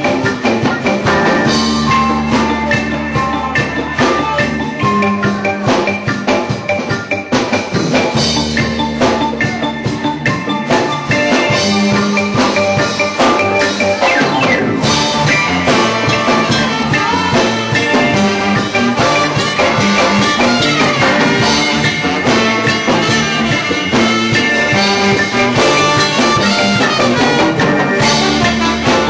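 Live reggae band playing, with a repeating bass line under drums and other instruments.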